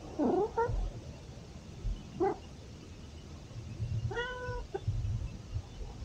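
Domestic cat meowing three times: a short call about half a second in, a brief one around two seconds in, and a longer, more drawn-out meow around four seconds in.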